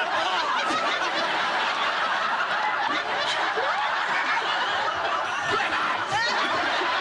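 A crowd of people laughing together, many voices at once in continuous laughter, with a man's laugh standing out about six seconds in.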